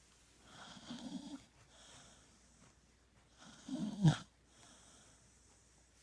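A pet snoring in its sleep: a softer rasping breath about a second in, then a louder snore near four seconds that ends in a short snort falling in pitch.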